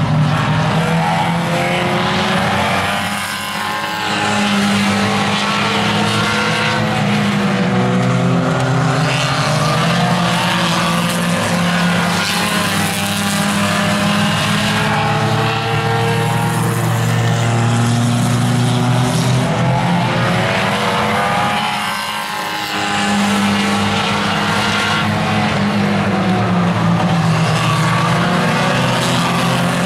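A pack of Tuner-class race cars running laps on a paved oval, several engines at once rising and falling in pitch as the cars go through the turns and past. The sound dips briefly twice, about three and twenty-two seconds in, as the pack goes down the far side.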